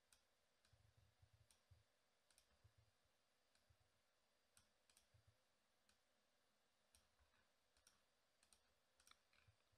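Faint computer mouse clicks, irregular, about two a second, over near silence.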